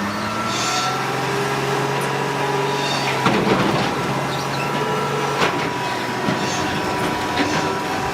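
Heavy log-handling machine running steadily, with short hisses now and then and two sharp metallic clanks a few seconds in.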